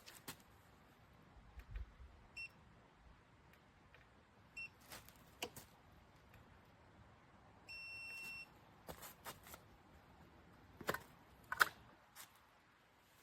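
Electronic beeps: two short beeps a couple of seconds apart, then one longer beep, among scattered sharp clicks and knocks.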